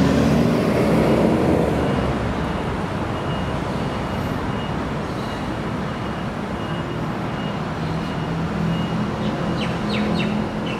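Steady road traffic rumble, louder in the first couple of seconds as a vehicle goes by, then even. A few short clicks sound near the end.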